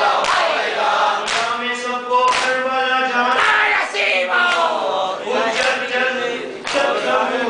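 A group of men chanting a nauha (Shia mourning lament) together, with hands striking chests in matam about once a second, keeping the beat of the chant.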